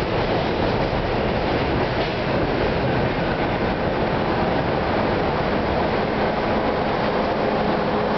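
R32 subway train running at the station, a steady loud rumble of wheels and cars on the rails.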